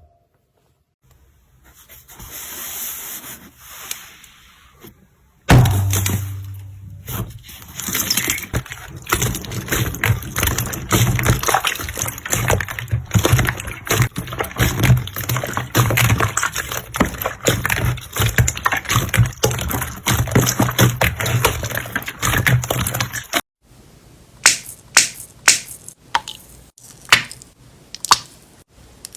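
Slime being handled: a soft hiss at first, then a long stretch of dense sticky crackling and squishing over a low hum, then a run of sharp separate pops and snaps near the end.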